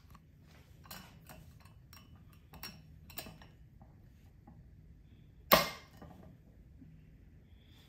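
Wire swing-top clasp on a glass bottle of kombucha being handled, with a few light clicks, then one loud, sharp click about five and a half seconds in as the clasp snaps shut.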